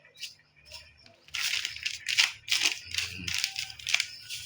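Sambal being ground with a pestle in a mortar (ulekan and cobek): repeated crushing, scraping strokes, about three a second, starting about a second and a half in.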